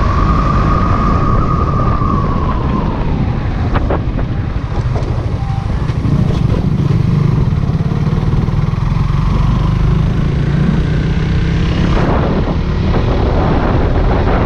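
Motorcycle engine running under way, heard from the rider's seat, with a heavy low rumble of wind and road noise over it.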